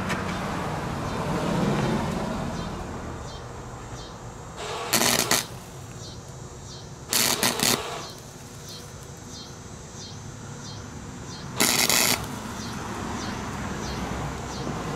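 Wire-feed (MIG) welder arc crackling in three short tack welds, about five, seven and twelve seconds in, each under a second, fusing a thin steel wire basket frame with the welder turned to its minimum setting and the wire speed down.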